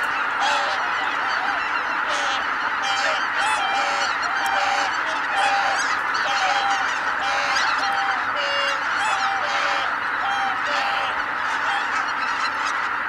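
A huge flock of greater white-fronted geese calling as it takes flight: a dense, steady chorus of many overlapping honking calls.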